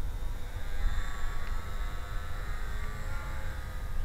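Wind rumble on the microphone under the faint high whine of a WLtoys F939 Pole Cat micro RC plane's electric motor and propeller, rising slightly in pitch.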